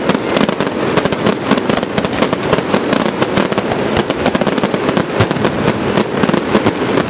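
Fireworks display: aerial shells and ground effects going off in a dense, continuous run of bangs and crackles, many a second.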